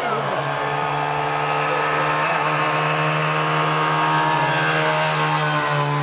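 Trabant rally car's engine running hard at high, nearly steady revs as the car drives along the stage.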